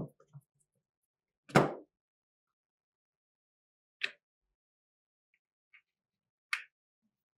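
Separate knocks and clicks of a rifle being handled during restoration work: a heavy thunk about one and a half seconds in, then two sharper, higher clicks about two and a half seconds apart.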